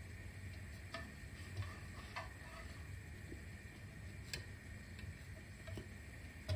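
A few light clicks and taps at irregular intervals over a steady low hum.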